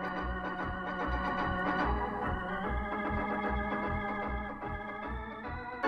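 Organ music: sustained chords held over a steady low bass beat of about two pulses a second, in the manner of a game-show organ cue.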